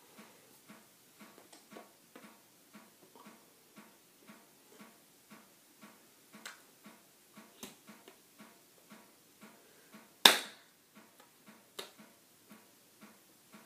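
Faint, steady clicking, about two to three clicks a second, with one sharp, louder click about ten seconds in.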